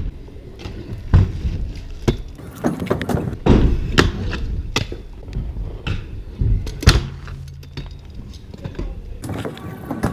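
Freestyle scooter rolling over concrete with a low rumble, broken by several sharp clacks and thuds as its deck and wheels land and strike the ramps.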